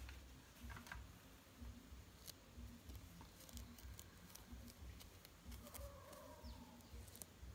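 Near silence, with faint scattered clicks and rustles from gloved hands handling and bending a leaf.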